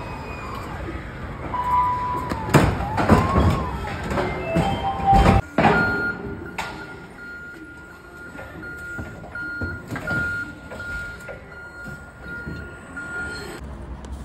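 Toyota forklift crossing a steel dock plate: a run of loud metal clanks and bangs with a few brief squeals in the first half, then a high electronic alarm tone sounding for about eight seconds with short breaks.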